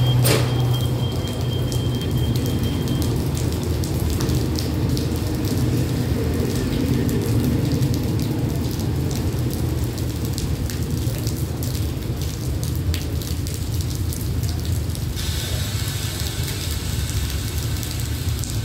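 Passenger train carriages rolling past and pulling away over the rails, a low rumble strongest at first and easing off as the rear car goes by, with a thin high whine for the first few seconds. A steady hiss of rain runs underneath.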